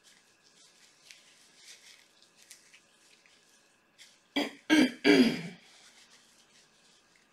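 A person clearing their throat in three quick coughing bursts about four seconds in, the last one the longest, after faint rustling.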